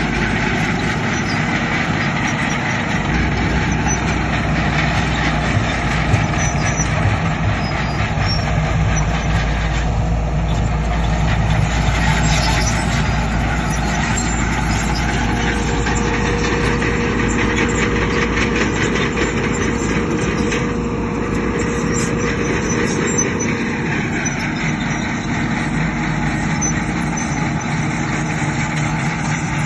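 Heavy diesel construction machinery, a bulldozer and dump trucks, running steadily under work.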